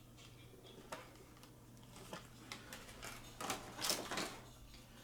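Hands handling small plastic Heroclix figures and their booster packaging: a few light clicks, then a louder brief rustle about three and a half seconds in.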